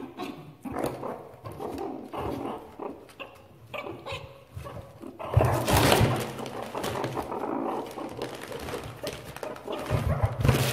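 Meerkats growling and chattering as they feed, with a louder burst about five and a half seconds in and again near the end. Crinkling plastic wrapping and scrabbling in a cardboard box run underneath.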